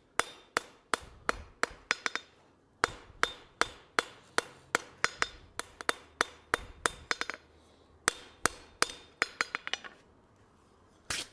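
Hand hammer striking a hot steel tong blank on an anvil, about three blows a second in three runs with short pauses, each blow ringing. The blows are knocking the sharp corners off the tong's handle. The hammering stops near the end.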